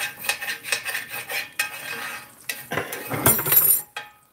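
A metal spoon scraping and clinking against the bottom of a cast iron skillet, loosening the cracklings from the leftover frying grease. The scraping comes in quick repeated strokes, is loudest just before it stops near the end.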